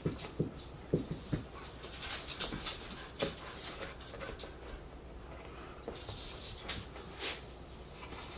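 Light knocks and clicks of plastic corner pieces being pushed and worked into the corners of a sheet-metal oil pan, a few sharp taps spaced irregularly, over a soft breathy sound that comes and goes.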